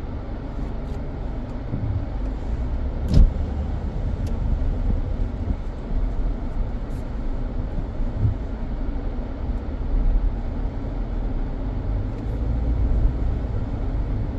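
Car driving slowly, heard from inside the cabin: a steady low rumble of engine and road noise. About three seconds in comes one sharp knock, the loudest sound, with a few fainter ticks elsewhere.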